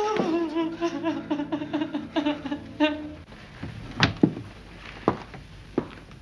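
A woman crying out in distress in short, quickly repeated sobbing cries for about three seconds. Then a few separate sharp knocks, like footsteps on a wooden floor.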